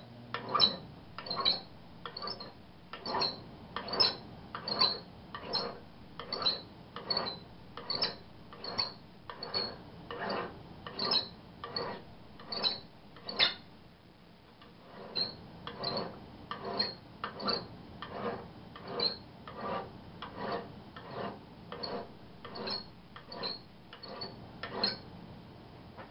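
Hand file rasping across metal in steady forward strokes, about one stroke every 0.8 s, with a short pause about halfway through. The file has just been sharpened by acid etching and is cutting, shedding filings.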